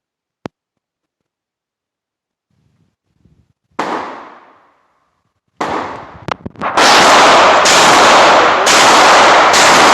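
Gunshots at a shooting range. One shot about four seconds in rings out and dies away over about a second. From about six seconds more shots come roughly once a second, and the sound stays at a very loud, continuous level between them.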